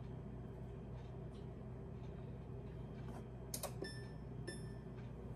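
Two short electronic beeps from an electric range's touch control panel about four seconds in, just after a light tap, over a faint steady background of fritters frying in oil.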